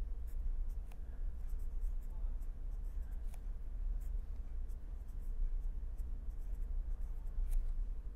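Pen writing on paper: many short scratchy strokes as symbols are written, over a steady low hum.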